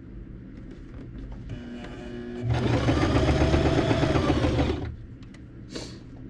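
Electric domestic sewing machine stitching a seam through a quilted pad. A faint hum builds from about one and a half seconds in, then the machine runs at speed for about two seconds and stops abruptly just before five seconds. A brief high hiss follows near the end.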